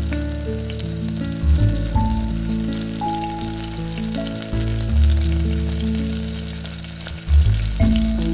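Food frying in hot oil in a pan, with a steady sizzle and fine crackles, under background music with deep bass notes.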